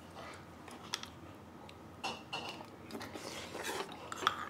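Metal spoons clinking and scraping against earthenware ttukbaegi soup pots as two people eat, with a few scattered light taps.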